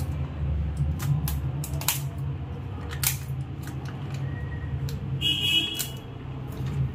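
Plastic packet being handled and twisted open, crinkling and crackling in short sharp bursts over a steady low hum. A brief high-pitched squeak sounds about five seconds in.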